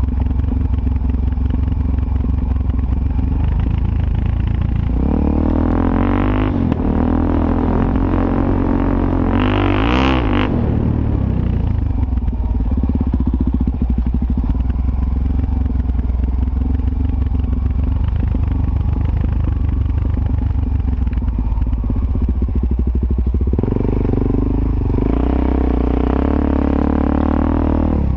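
Suzuki DR-Z400S's single-cylinder four-stroke engine running as the bike is ridden. The revs climb about five seconds in, climb sharply again around ten seconds in, and rise once more over the last few seconds.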